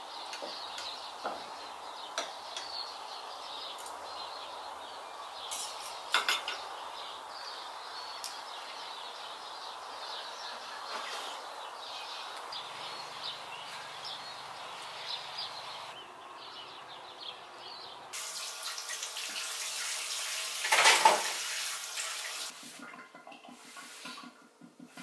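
Kitchen washing-up at a sink: running water from the tap and dishes and cutlery clinking. A steady hiss with scattered sharp clinks gives way, about three-quarters through, to a louder rush of water, followed by a few separate clatters of crockery.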